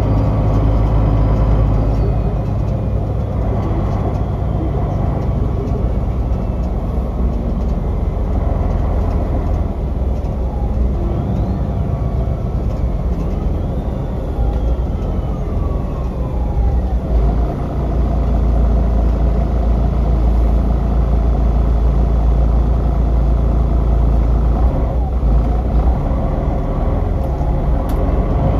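A MAN Lion's City city bus's D2866 diesel heard from inside the passenger cabin, running under way with a steady low drone. Partway through there are a few falling whines, and a little past halfway the engine note grows louder and deeper again.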